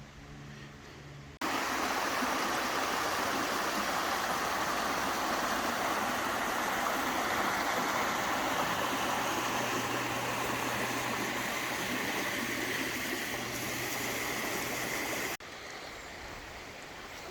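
Stream water running over rocks, a steady rush that starts suddenly about a second and a half in and cuts off shortly before the end.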